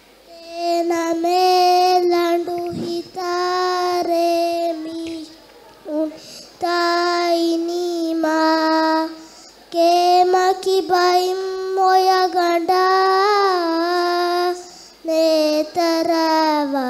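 A young girl sings raivaru, Maldivian traditional sung verse, solo and unaccompanied into a microphone. She holds long, steady notes in phrases separated by short breaths, and a few notes bend in pitch near the end.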